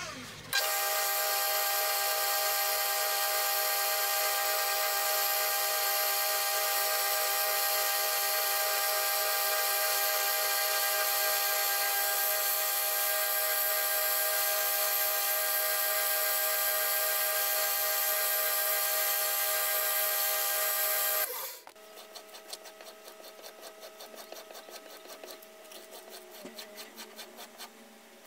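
A 2x72 belt grinder running steadily, a constant whine of several fixed tones over hiss, until it cuts off suddenly about 21 seconds in. After that come softer repeated rubbing strokes, as of a blade drawn along a leather strop.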